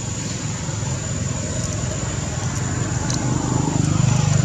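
A motor vehicle engine running close by, a low steady rumble that grows louder near the end as it comes closer.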